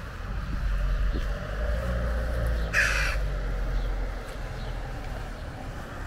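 A crow cawing once, a single harsh call near the middle, over a steady low rumble.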